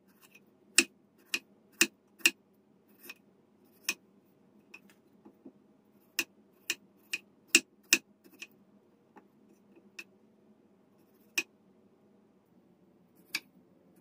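Kitchen knife slicing potato into thin rounds on a wooden cutting board: a sharp knock each time the blade hits the board, coming irregularly, sometimes two or three in quick succession.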